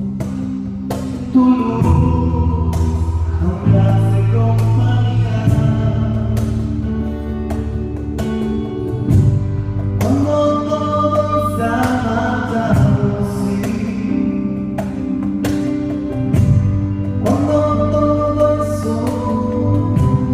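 Live band playing a Spanish-language worship song with a lead vocal, bass and a steady drum beat.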